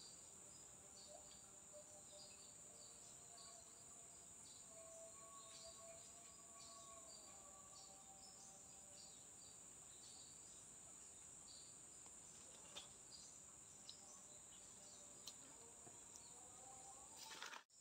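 Near silence: a faint, steady high-pitched drone of forest insects, with a few faint ticks and a soft distant call a few seconds in.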